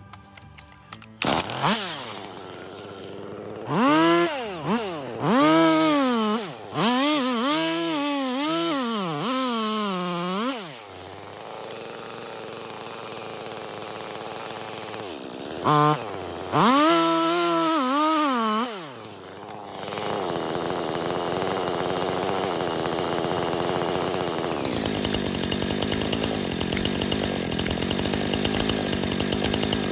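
Jonsered CS2255 two-stroke chainsaw revving up and falling back again and again in throttle bursts, then, from about two-thirds of the way in, running steadily at speed while cutting into a large birch trunk.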